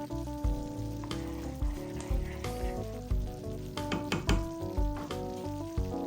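Food sizzling in a pan with a few sharp clicks of a utensil about four seconds in, under background music with a steady beat.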